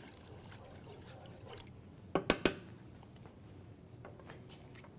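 A wooden spoon stirs salted water in a wide skillet with a faint watery swish. About two seconds in there are two sharp clacks a quarter second apart, the spoon knocking against the pan.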